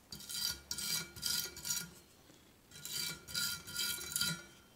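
A small stiff brush scrubbing a freshly soldered etched brass locomotive side on a steel plate: two bouts of about four quick scratchy back-and-forth strokes, with a short pause between.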